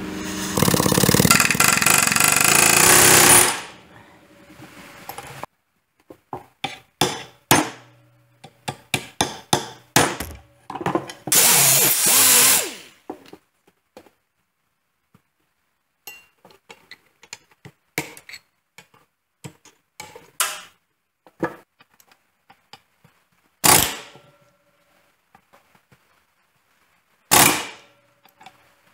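Pneumatic air hammer chattering against a pin in a tractor parking-brake ratchet assembly, in bursts: one of about three and a half seconds at the start, a run of short bursts, another long burst near twelve seconds, and short bursts later, with metal clicks and knocks in between. The pin will not drive out because it is rusted inside its sleeve.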